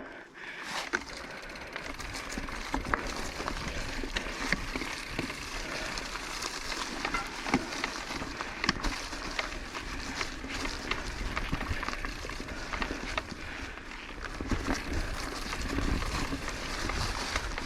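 Orbea Occam mountain bike riding along a dirt singletrack trail: steady tyre noise with a low rumble and frequent small clicks and rattles from the bike.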